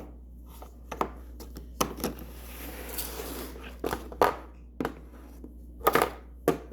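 Packaging being handled and opened by hand: irregular sharp clicks and crackles, with a stretch of rustling about two to three and a half seconds in.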